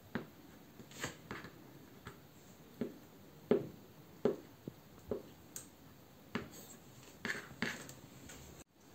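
Kitchen knife tapping on a plastic cutting board as it slices through a peeled hard-boiled egg: about a dozen light taps at uneven intervals, roughly one every half second to second.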